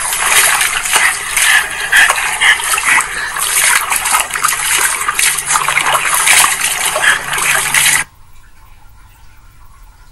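Water splashing and sloshing in a small plastic tub as a small dog splashes about in it, water spilling over the rim. The splashing cuts off abruptly about eight seconds in.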